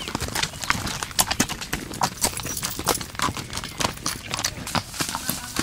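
Hooves of several walking horses clip-clopping on a gravel track, an uneven run of sharp clops.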